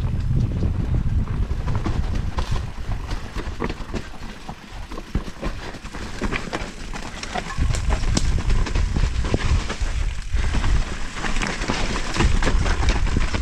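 Mountain bike descending a rough dirt trail at speed: wind buffeting the microphone with a heavy rumble, tyres rolling over dirt and roots, and frequent clicks and rattles from the bike over bumps, louder from about halfway through.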